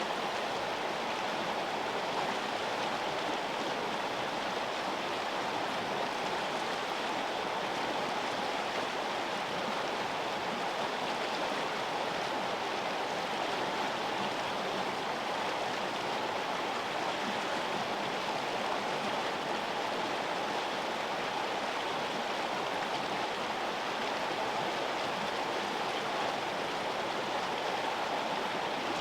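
River water flowing, a steady, even rushing that never pauses or changes.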